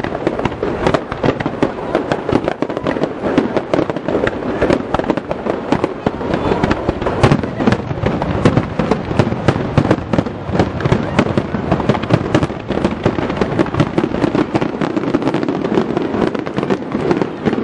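Aerial fireworks going off in a dense barrage: shells launching and bursting in quick succession, many sharp bangs each second overlapping with no pause.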